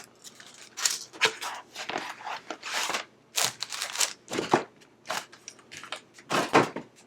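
Plastic LEGO parts bags and instruction manuals being handled, crinkling and rustling irregularly, with small rattles and crackles.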